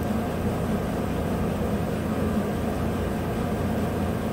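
A 2015 GMC Sierra's 5.3-litre V8 idling with a steady hum.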